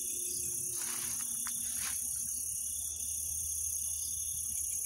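A dense, steady, high-pitched chorus of crickets chirring in the vegetation, with a pulsing, rhythmic trill joining in near the end.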